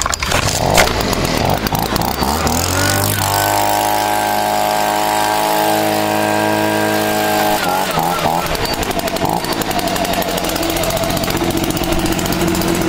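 Stihl BG55 handheld leaf blower's two-stroke engine running just after a cold start with the choke: running low at first, revved up to full throttle about three seconds in and held there as a steady high whine for about four seconds, then dropped back to idle.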